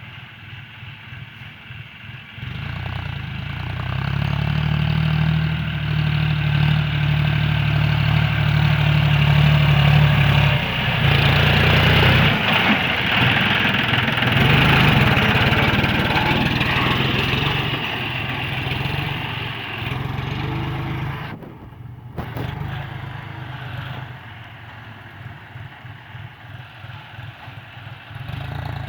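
John Deere 5045D tractor's naturally aspirated three-cylinder diesel engine running, growing louder a couple of seconds in with a steady deep tone, then easing off and quieter in the second half, with a brief cut-out near the end.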